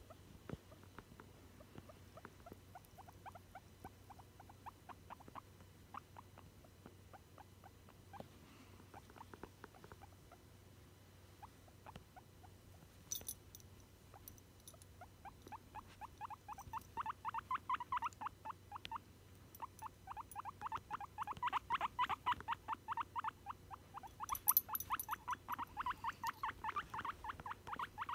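Guinea pig making a long run of short, soft squeaks in quick succession, faint at first and growing louder about halfway through.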